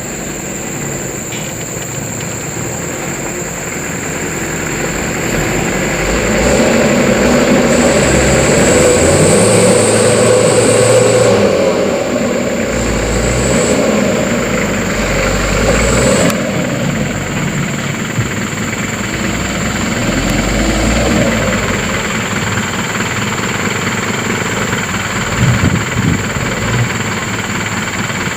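Mitsubishi Canter light truck's diesel engine working hard on a muddy track. It grows louder for several seconds, eases off, then rises again, with a few short knocks near the end.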